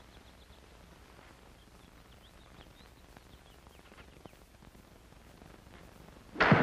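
Faint bird chirps over quiet outdoor ambience, then near the end one loud, sharp whack as a golf club drives the ball hard.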